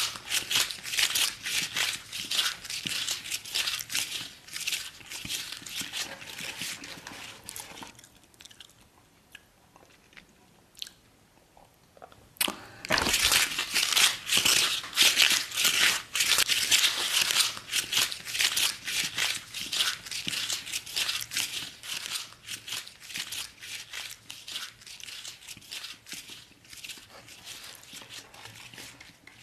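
Cardboard pizza box being torn and crumpled by hand, a dense crackling and ripping. It stops about eight seconds in, comes back louder with a dull thump a few seconds later, and thins out near the end.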